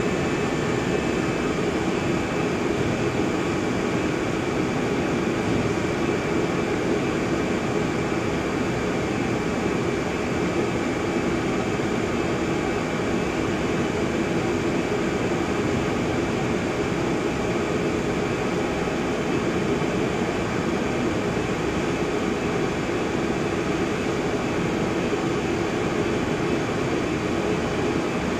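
Film printing machine running a plastic web over its rollers: a steady mechanical drone with a thin high whine above it.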